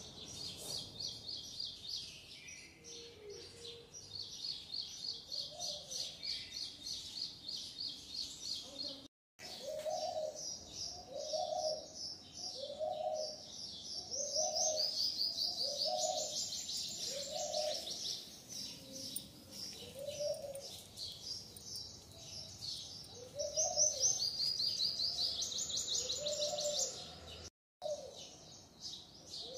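Small birds chirping in rapid high trills, with a lower call repeated about once a second beneath them. The sound drops out abruptly twice, for a split second each time.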